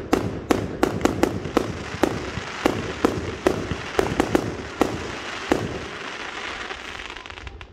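Fireworks display: a rapid string of sharp bangs from bursting shells over a dense crackle. The bangs thin out after about five seconds and the crackle fades near the end.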